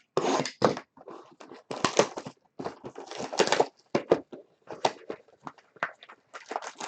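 Plastic wrap and foil card packs rustling and crinkling in irregular bursts as a sealed box of baseball trading cards is torn open and its packs are pulled out.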